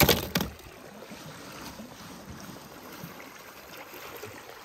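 Steady rush of running water, after two short sharp sounds in the first half-second.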